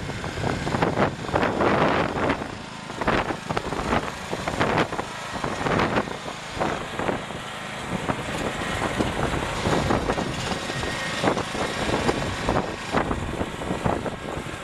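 Husqvarna YTH21K46 riding mower's engine running, with wind gusting irregularly on the microphone.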